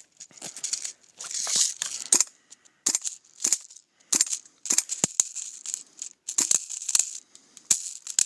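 Airsoft guns firing: irregular sharp pops, some single and some in quick pairs, with a stretch of rustling about a second in.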